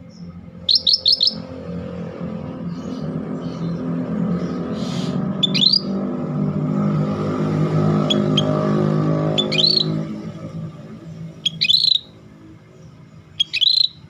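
Scaly-breasted bulbul giving short, clear whistled phrases: a quick run of four notes about a second in, then single phrases every couple of seconds. A low engine rumble builds underneath and falls away at about ten seconds.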